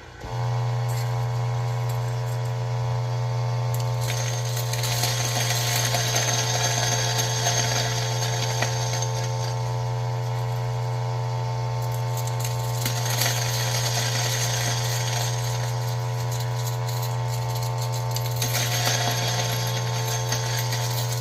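Ceado E6P espresso grinder's motor starts and runs with a steady hum. Coffee beans crunch through the burrs in two long stretches, from about 4 to 12 seconds in and again from about 13 to 19 seconds in, as they are fed in slowly a few at a time.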